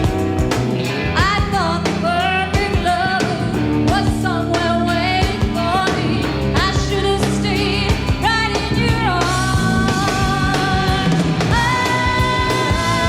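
Live pop-rock band playing, with a lead vocal singing phrases that bend and waver in pitch over bass and drums, heard from an FM broadcast taped on cassette.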